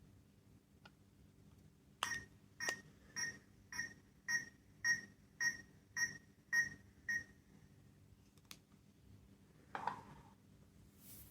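Small electronic sound-making capsule toy beeping about ten times in a row, roughly two short beeps a second, then a brief handling rustle near the end.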